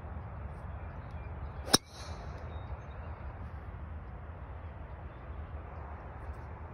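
A single sharp crack of a TaylorMade M4 driver's titanium head striking a teed golf ball, a little under two seconds in, over steady low background noise.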